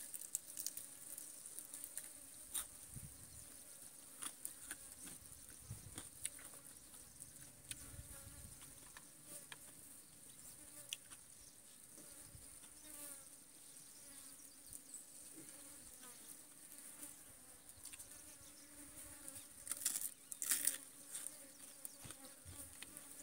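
Flies buzzing faintly around a person eating, with soft chewing clicks throughout. About twenty seconds in, a few loud crunches of chicharon (crispy fried pork rinds) being bitten and chewed.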